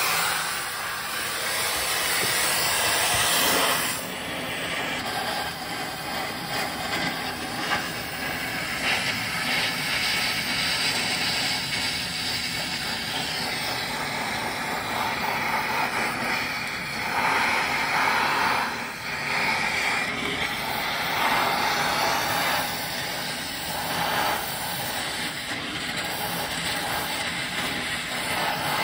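Gas torch flame hissing steadily as it heats a rusted leaf-spring nut red-hot to free it, swelling louder a few times.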